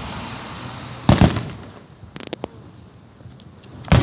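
Fireworks bursting: a loud boom about a second in, a few sharp cracks around two seconds, and another loud boom near the end.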